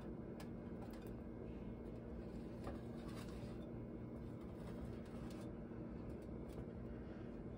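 Quiet room tone: a steady low hum under a faint noise floor, with a few faint clicks.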